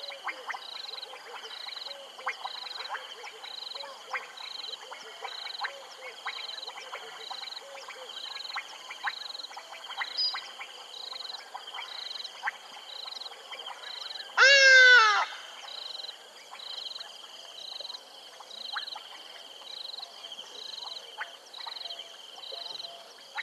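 Frog chorus at a waterhole: a steady high trill, a high note pulsing a little more than once a second, and scattered clicking calls. About two-thirds of the way through, one loud falling animal call with a rich, nasal tone lasts under a second.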